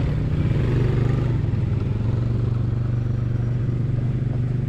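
ATV engine running steadily at an even throttle, a constant low drone with no revving.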